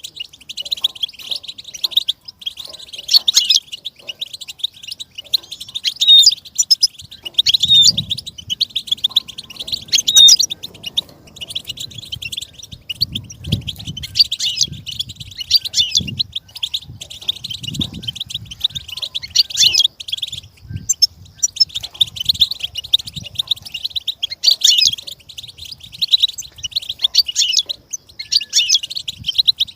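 Goldfinch singing a fast, continuous twittering song of rapid high chirps, broken by a few short pauses.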